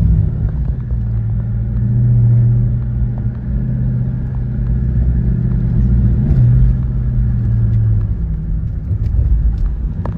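Dodge Charger's HEMI V8 running at low revs under light throttle, heard from inside the cabin as a steady low drone that shifts a little in pitch and eases off near the end.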